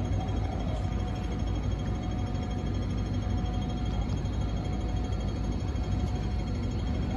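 Steady background hum and low rumble with a thin constant whine over it. Nothing starts or stops.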